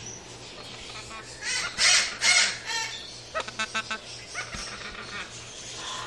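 Parrot chattering: a few loud, squawky calls a second and a half to three seconds in, then a quick run of short chirps, then softer calls.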